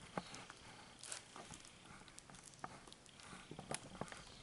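Faint, scattered small clicks and light knocks of hands handling things on a wooden table.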